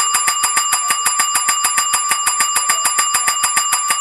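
Desk call bell struck over and over in rapid, even succession, about ten dings a second, ringing continuously to summon the office staff.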